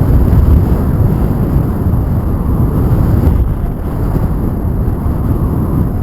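Wind buffeting the microphone: a loud, steady low rumble with no distinct tones.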